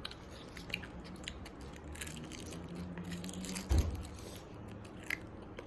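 Someone chewing tanghulu, crunching its hard sugar shell, with scattered small crunches and one low thump a little past the middle.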